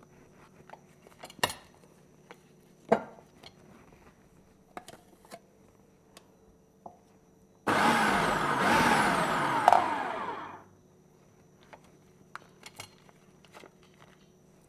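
Food processor motor running for about three seconds, starting sharply after seven seconds and stopping a little after ten, cutting butter into the flour for a pie crust dough. Before and after it, light knife clicks and taps on the counter.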